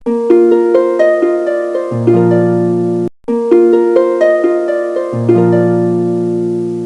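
Background music: a short plucked-string melody, played twice with a brief break between, with a low held note under the second half of each phrase.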